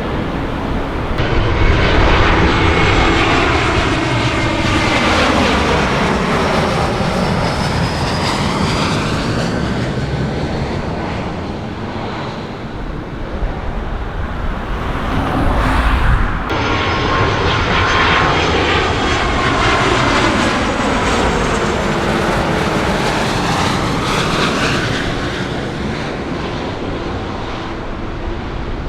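Jet airliner passing close by, its engine noise swelling and then fading with a sweeping, phasing whoosh. An abrupt cut about halfway through brings a second airliner passing the same way.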